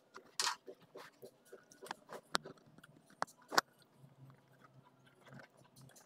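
Faint handling noise from a coaxial cable end and a metal RCA plug being fitted together by hand: a few small sharp clicks and brief scrapes at irregular moments.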